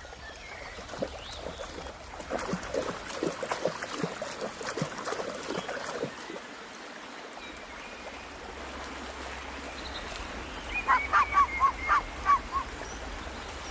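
Crackling, rustling ticks for a few seconds over a soft watery hiss. Near the end, a duck gives a quick run of about eight quacks.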